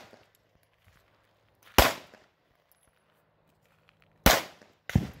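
9mm pistol shots: three sharp reports, one about two seconds in and two more in quick succession near the end, each with a short ringing tail.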